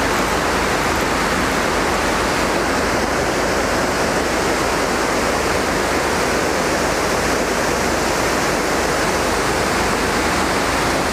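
Fast river water rushing and churning over the rapids just below a dam: a steady, unbroken rush.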